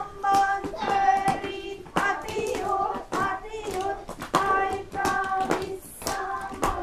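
Children singing a song, with hand claps along the way.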